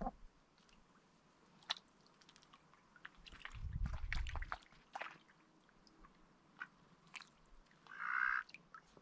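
Mixed-breed Indian runner ducks dabbling their bills in a shallow pool of water, making scattered wet clicks, snaps and small splashes. There is a brief low rumble about halfway through, and a short rasping burst, louder than the rest, near the end.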